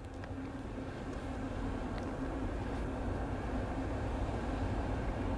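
Distant EMD GP40-series diesel locomotive leading an approaching commuter train: a low rumble with a steady engine hum, slowly growing louder.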